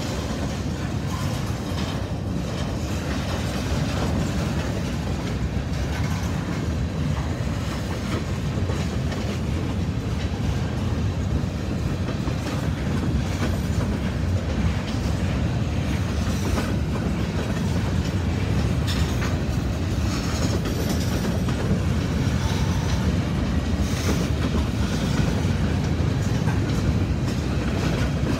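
Freight train of covered hopper cars rolling steadily past, a continuous low rumble with wheels clacking over the rail joints.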